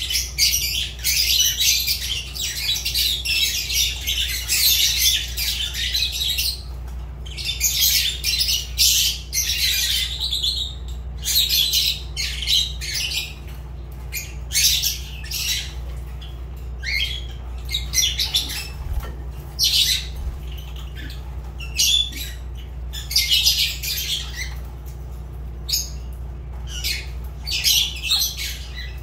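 Fischer's lovebirds chattering with shrill, high-pitched squawks in near-continuous bursts broken by short pauses, over a steady low hum.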